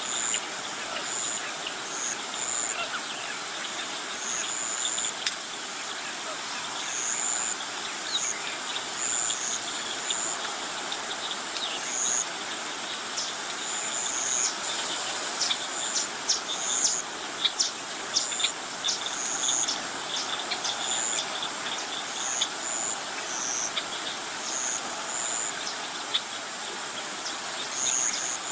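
Natural ambience of insects and birds: a steady hiss with short high chirps repeating every second or so. Partway through there is a flurry of sharp clicking calls.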